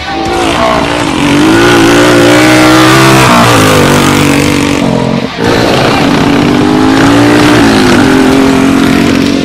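Cubcross motorcycle engines racing, revving up and down with a brief drop in revs about five seconds in.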